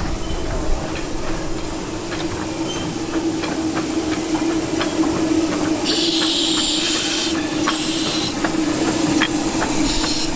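The 15-inch gauge miniature steam locomotive 'Northern Rock' drawing slowly into the station, with a steady hum and light clicks of wheels over the rails. Loud bursts of steam hissing come about six seconds in, again briefly around eight seconds, and near the end.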